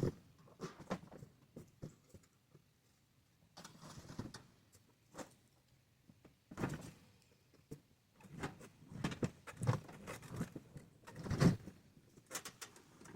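Irregular knocks, thuds and rustling of objects being handled and moved about, coming in clusters with short pauses between.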